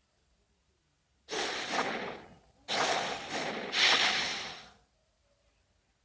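Godzilla creature sound effect from the 2014 film: two long, breathy exhales, the second longer and loudest near its end.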